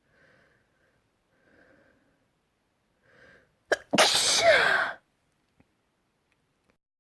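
A person sneezing once, loudly, about four seconds in, after a few faint breaths. A sharp catch is followed by a burst of about a second with a falling voiced note at its end.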